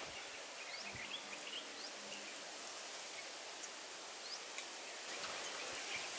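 Outdoor ambience: a steady hiss with a few short, high bird chirps scattered through it.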